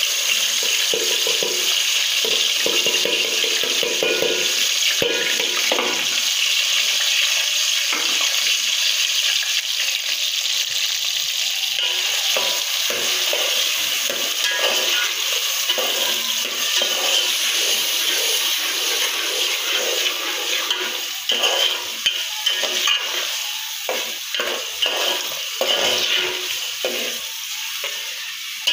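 Chopped tomatoes sizzling in hot oil in a metal pot, a steady frying hiss. A steel ladle stirs through them, with scrapes and knocks against the pot heard more distinctly in the second half.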